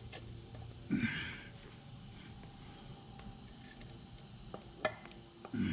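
A person breathing out hard through the nose twice, about a second in and again near the end, with a few light metallic clicks from parts being handled in between.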